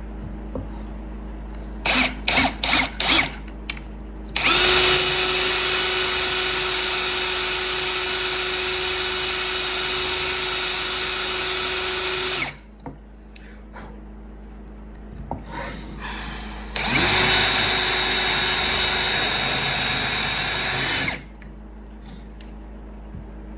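Handheld electric power tool, like a drill, run in bursts. A few quick trigger blips come first, then it runs at one steady speed for about eight seconds. It stops, then runs again for about four seconds before cutting off.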